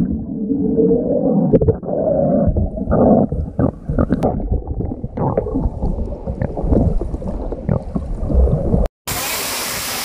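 Muffled rumbling with many dull knocks. After a cut near the end, the steady rushing of a waterfall.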